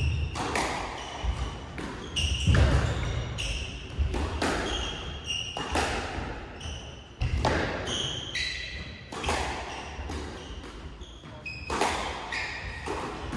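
Squash rally: the ball cracking off rackets and the court walls at irregular intervals, with short high squeaks of shoes on the wooden court floor.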